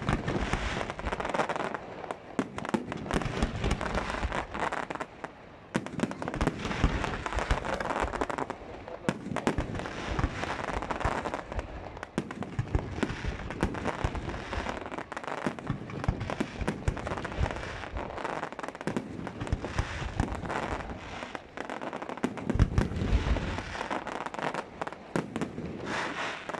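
Aerial fireworks display: a dense, unbroken run of bangs and crackling shells. There are heavier booms at the start and again a few seconds before the end.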